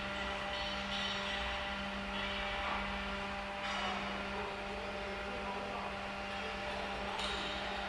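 CNC door lock drilling machine running with a steady electrical hum, with a brief noisy swish midway and another near the end.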